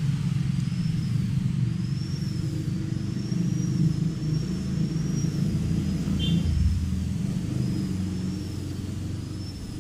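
An engine running steadily, a continuous low hum, with a faint high thin tone that wavers up and down in slow regular swells over it.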